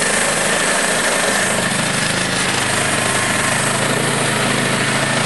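Timber King 1200 portable band sawmill running: a steady mechanical drone from its engine and band blade, with a constant high whine. A lower hum joins about a second and a half in.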